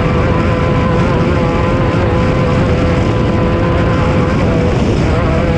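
Off-road race vehicle's engine running hard at a steady pitch, over a heavy low rumble.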